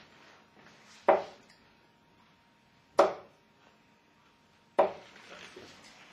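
Three steel-tip darts striking a Winmau Blade 4 bristle dartboard, one sharp thud about every two seconds.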